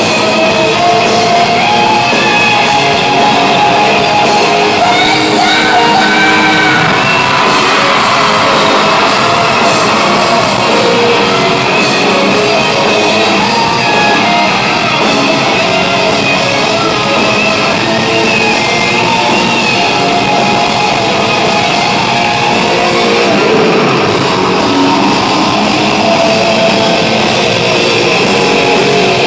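Rock band playing live in a large hall, with electric bass, guitar and drums, plus singing and shouting. The sound is loud and steady and thin in the deepest bass.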